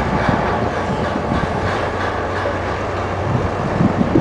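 Bruce SGV-200 hydraulic vibratory hammer running as it drives a steel sheet pile: a steady, loud mechanical rattle with a constant low hum underneath.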